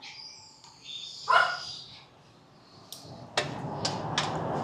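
A dog barks once, briefly, about a second in. Near the end come a few sharp metallic clicks as the front-wheel spacer and axle parts are handled, over a steady low hiss.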